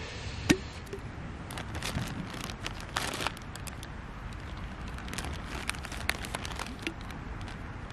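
Scattered light clicks, taps and crinkling from camp cooking gear and food packaging being handled, with a sharper knock about half a second in.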